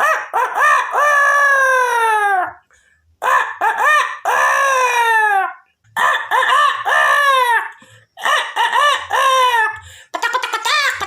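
A person imitating a rooster crowing with his voice: four long crows, each rising briefly and then sliding down in pitch, followed near the end by a quick run of short choppy calls.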